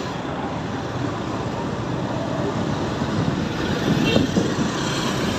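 Honda motorcycle's engine running steadily under way, with road and wind noise and the surrounding traffic of auto-rickshaws and cars.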